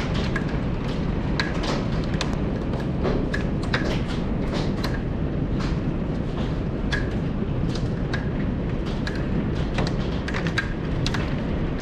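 Heavy hail falling: a dense, steady roar of hailstones, with many sharp, irregular clicks of single stones striking hard surfaces close by.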